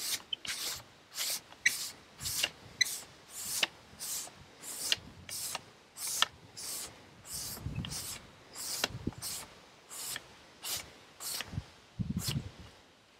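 Push broom bristles scraping across the rough-sawn face of a chainsaw-milled wooden slab in quick back-and-forth strokes, about two a second, brushing off the sawdust; the sweeping stops near the end.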